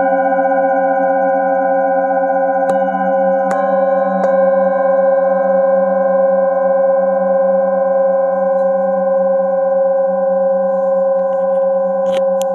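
Singing bowls ringing in a long, steady hum of several layered tones that waver slowly. Three light taps about three to four seconds in add fresh, higher ringing overtones. Brief rustling handling noise comes near the end.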